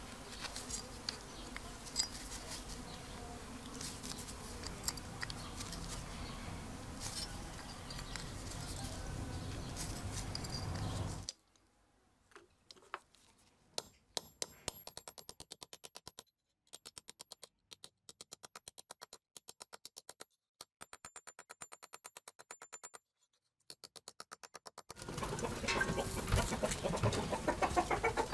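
Outdoor background with birds and hens clucking, and a few sharp clicks in the first part. About eleven seconds in the sound drops to near silence broken by fast, faint ticking, and the clucking returns louder near the end.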